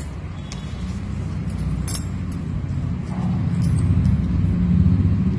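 Low rumbling background noise that swells a little after about three seconds, with a few faint clicks and clinks.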